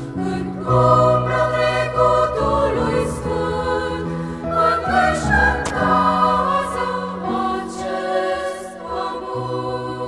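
Women's choir singing a Romanian song in held chords, the notes moving every second or so.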